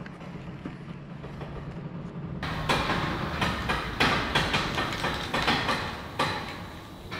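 Dense clattering knocks and rattles starting suddenly about two and a half seconds in, over a low steady hum.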